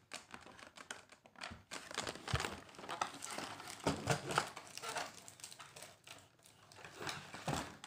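Cardboard doll box and its packaging rustling and crinkling as they are handled, with scattered irregular clicks and scrapes.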